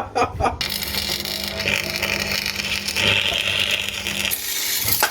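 A steady mechanical hiss with a low hum, running for about four seconds before cutting off, then a single click near the end.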